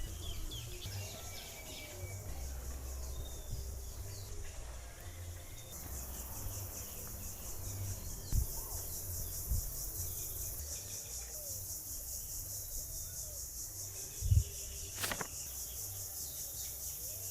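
Insects trilling in a steady high chorus with a fast, even pulse, growing louder about six seconds in, with a few faint bird chirps. Under it runs a low rumble, broken by a couple of soft thumps.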